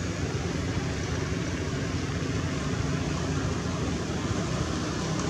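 Steady rumbling outdoor background noise with no distinct calls or knocks.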